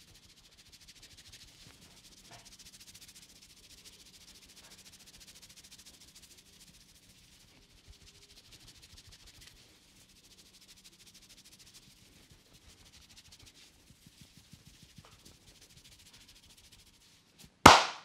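Fingers rubbing and scrunching hair in a head massage: a faint, crackling rustle. Near the end, one loud sharp pop as the masseur strikes the head with his clasped, cupped hands.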